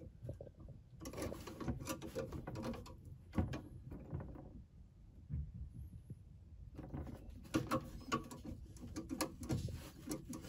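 Irregular small clicks, scrapes and rustles of electrical wire being stripped and handled at an outlet box, easing off for a couple of seconds in the middle.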